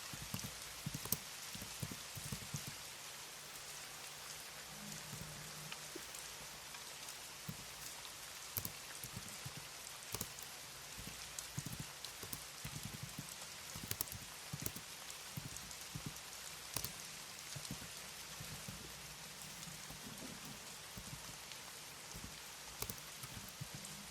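Computer keyboard typing: irregular soft key clicks, sometimes in quick little clusters, over a steady background hiss.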